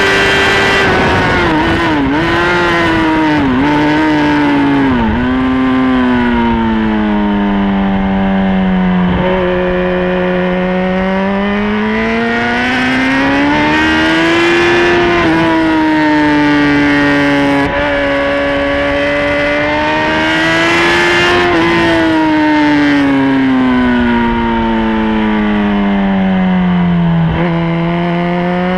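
Sport motorcycle engine at full song on track: the revs drop in three quick steps early on as the rider brakes and downshifts, sink low through a long corner, then rise smoothly under acceleration, hold, and fall away again near the end.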